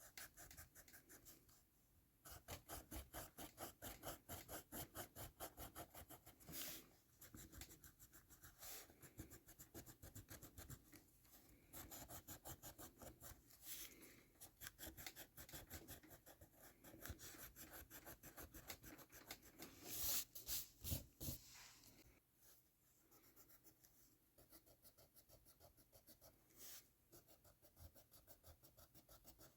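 An eraser rubbed hard back and forth over coloured mechanical pencil lead on paper: faint, quick, even strokes, several a second, with a few short pauses.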